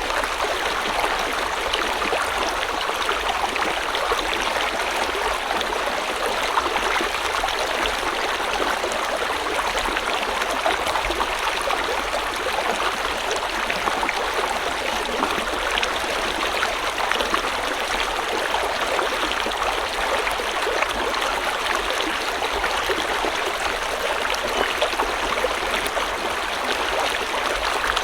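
River water flowing steadily over rocks, a continuous rushing with small splashes and gurgles.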